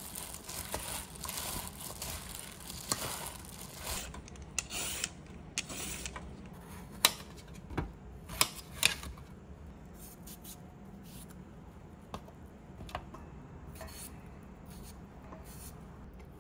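A plastic-gloved hand tossing seasoned cucumber in a stainless steel bowl, a continuous rustling and squishing for the first few seconds. Then a kitchen knife cuts peeled cucumber on a stainless steel tray, with a series of sharp clicks as the blade meets the metal, the loudest a few seconds in.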